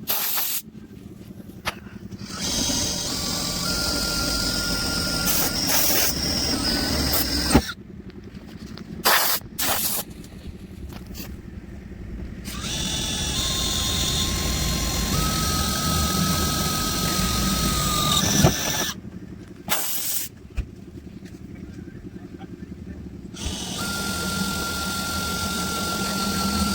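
Power drill boring the larger holes through the sheet-metal hood, in three runs of several seconds each with a steady whine.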